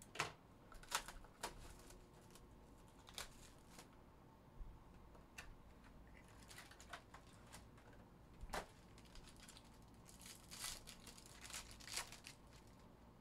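A trading card box is handled and a foil-wrapped card pack torn open, giving faint, scattered clicks and crinkles of cardboard and foil. The sharpest click comes about two-thirds of the way in, and a denser run of foil crinkling follows near the end.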